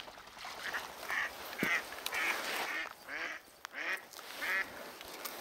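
Duck quacking: a series of about seven quacks, one roughly every half second.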